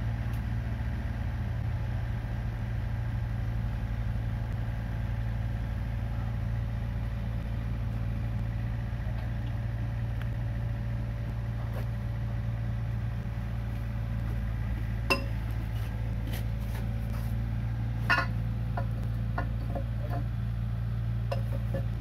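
Komatsu PC45 mini excavator's diesel engine running at a steady, unchanging speed. Two sharp clinks sound a few seconds apart in the latter part.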